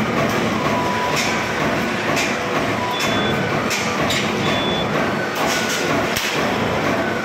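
Steady, loud machinery drone of a sheet-metal shop around a press brake, with several sharp metallic knocks and a few brief high squeals as a long metal sheet is handled and fed into the machine.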